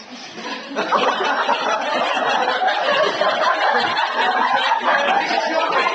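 A classroom of students laughing and chattering together, swelling up loudly about a second in and staying loud.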